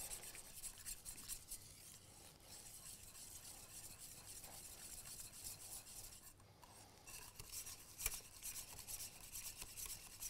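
Wire whisk faintly scraping and rasping around a stainless steel saucepan of semolina polenta as it thickens and absorbs the milk and water, with a light knock about eight seconds in.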